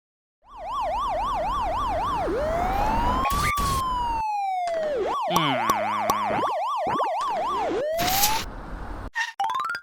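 Police car siren sound effect, switching between a fast yelp and a slow rising-and-falling wail, with other short cartoon sound effects laid over it in the middle and near the end.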